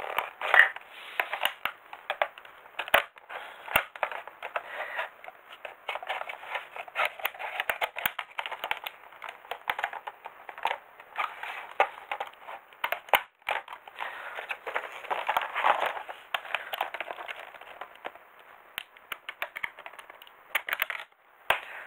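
Thin clear plastic blister packaging crinkling and crackling as it is cut open with scissors, with many sharp snips and clicks throughout.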